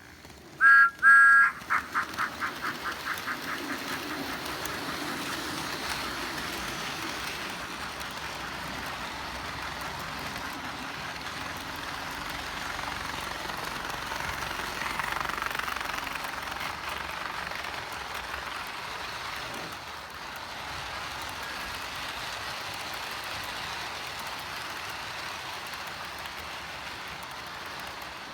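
Battery-powered toy train engines running along toy track, a steady whirr of small motors and rolling wheels. About a second in, two short high-pitched tones sound, then a fast rattle that dies away over about two seconds.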